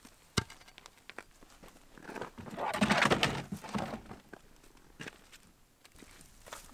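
Footsteps on gravel and knocks from handling gear, with a louder rustling noise about three seconds in.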